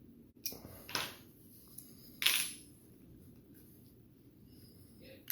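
A few short handling sounds from working a folding knife's pivot with a driver: brief scrapes and clicks about half a second apart near the start, a louder one a little past two seconds, and another at the very end.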